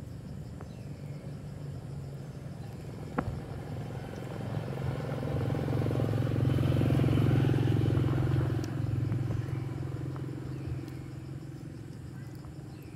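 A motor vehicle passing by: its low engine rumble builds over a few seconds, is loudest in the middle, then fades away.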